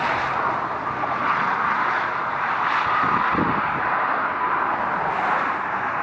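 Steady rush of motor traffic going by on the road beside the walkway.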